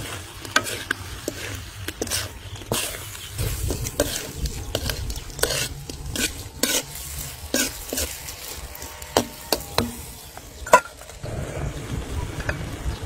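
Metal ladle scraping and clinking against a wok as shrimp are stirred and tossed in sizzling sauce, with irregular scrapes and knocks throughout.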